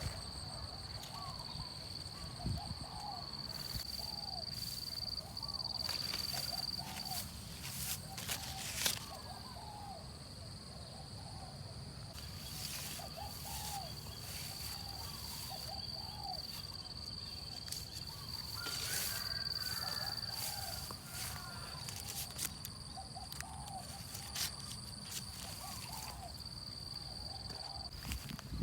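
Outdoor natural ambience: a steady high-pitched drone throughout, with short animal calls repeating roughly once a second and occasional rustling clicks.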